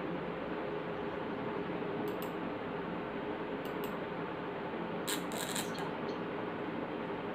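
Steady room noise and microphone hiss with a faint hum, broken by a few brief light clicks about two and four seconds in and a short cluster of clicks about five seconds in.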